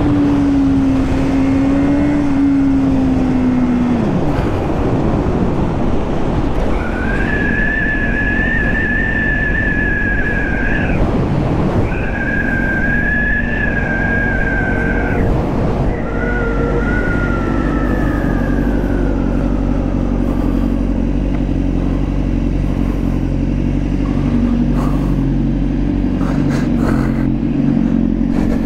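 Honda Fireblade's inline-four engine running at high revs, falling away about four seconds in as the throttle closes, then loud wind rush with a high whine that drops in pitch as the bike slows. From about the middle on, the engine runs low and steady at slow pit-lane speed, with a few clicks near the end.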